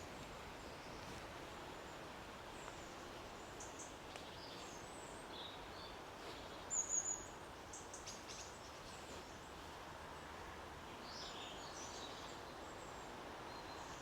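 Faint, steady outdoor background hiss with small birds chirping here and there in high, short calls, the loudest a brief chirp about halfway through.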